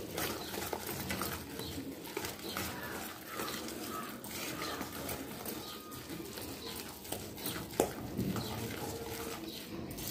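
Wire whisk beating a thick rusk-powder and milk batter in a stainless steel bowl: quick repeated clicks and scrapes of the wires against the metal, with the soft slap of the stiff batter.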